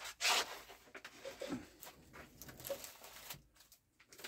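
Paper and packaging rustling as a shipping box is unpacked by hand: a louder rustle just after the start, then softer scattered rustles and light clicks that stop about three seconds in.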